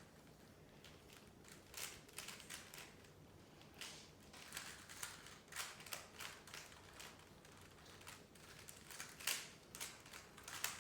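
Rubik's cubes being turned quickly by hand: a faint, irregular clatter of plastic clicks as the layers are twisted, coming in quick flurries.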